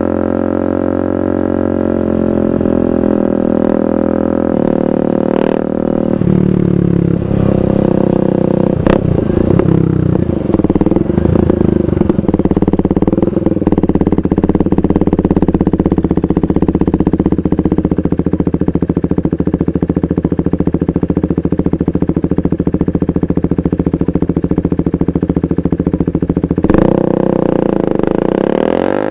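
2015 KTM 390 Duke's single-cylinder engine running through a KO Lightning aftermarket exhaust while being ridden. The engine note shifts in pitch several times in the first third, then holds a steady cruising drone. Near the end it drops and then climbs again.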